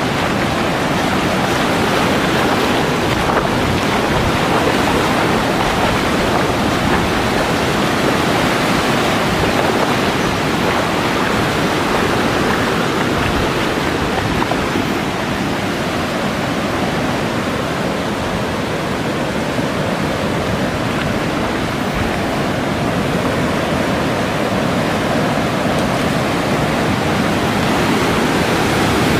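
Muddy floodwater rushing and breaking in waves: a steady, loud rush of turbulent water.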